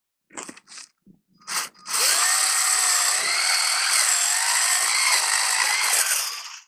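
Tamiya DB-01 RC car's 21-turn brushed electric motor and drivetrain whining under throttle, its pitch wavering up and down, with the homemade spiked tyres hissing and scratching on the ice as the car spins and slides. The loud run starts about two seconds in, after a few short clicks, and cuts off suddenly near the end.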